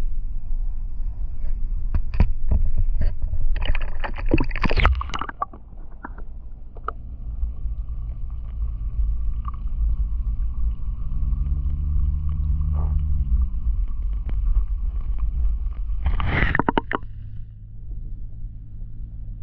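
Wind rumbling heavily on the microphone on open water, with two short bursts of splashing water, about four seconds in and again near the end.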